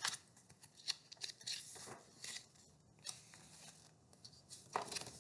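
Pages of a picture book being handled and turned: a series of soft paper rustles and flicks, with a fuller rustle near the end.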